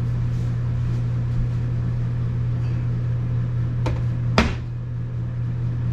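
A steady mechanical hum, like a running motor, with two sharp metallic clicks about four seconds in, the second louder and ringing briefly.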